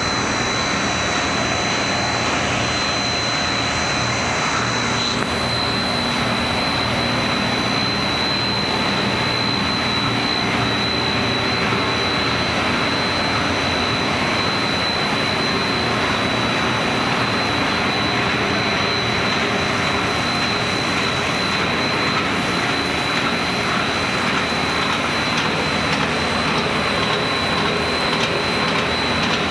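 Machinery of a snack extrusion processing line running: a steady, dense mechanical noise with a constant high-pitched whine.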